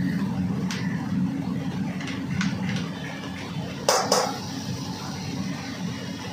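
Metal ladle striking a wok during stir-frying: a few light taps, then two loud clangs about four seconds in, over a steady low rumble.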